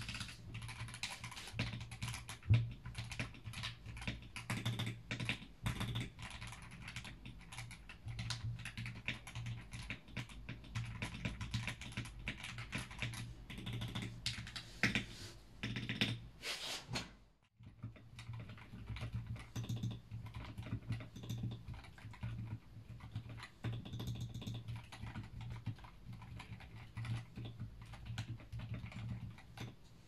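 Continuous typing on a CMK68 mechanical keyboard with Gateron Pro Silver linear switches, tape-modded with two layers and fitted with PE switch pads and relubed stabilisers. About halfway through the sound cuts off for a moment, then typing resumes on the same board fitted with Gateron North Pole switches.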